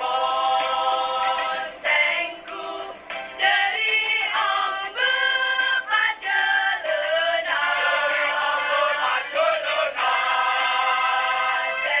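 A school choir singing an Indonesian ethnic choral piece in held chords of several voices, the chords shifting every second or so with short breaks between phrases.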